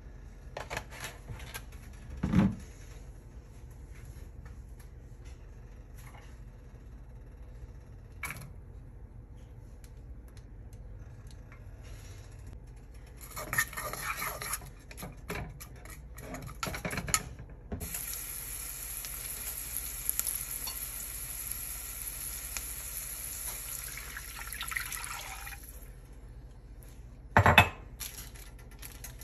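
Chopped vegetables scraped off a board into a saucepan of hot oil with a few clatters, then sizzling steadily for several seconds before dying down. A sharp knock early on and another near the end.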